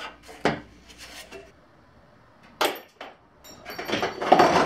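Knocks and clatter of car body parts being handled and pried loose. There is a sharp knock about half a second in and another near the middle, then rattling and scraping near the end as a plastic bumper clip is forced, which breaks it.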